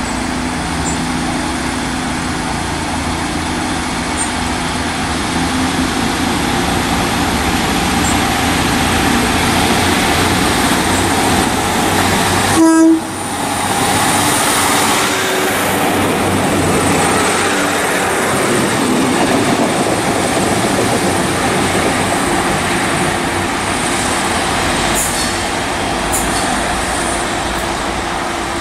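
British Rail Class 150 Sprinter diesel multiple unit running with its underfloor diesel engines and wheels on the rails. About halfway through there is a brief, loud horn toot, and then the rumble of a passing diesel train.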